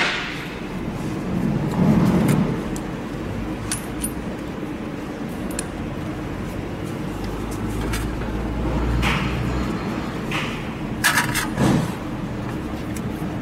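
Metal injector tools clinking and knocking as they are handled and laid into an aluminium tool case: a handful of scattered clicks, the loudest pair near the end, over a steady low hum.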